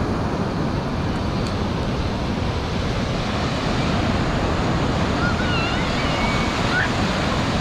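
Ocean surf: a steady wash of waves.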